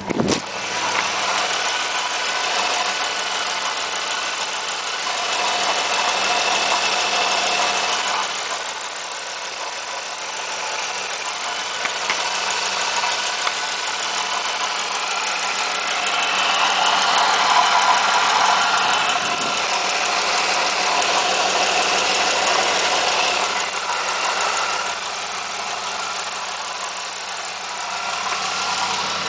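1997 Pontiac Firebird's 3.8-litre V6 idling, heard close up in the engine bay, with a steady ticking running through it. The sound grows louder and softer as the microphone moves about the engine.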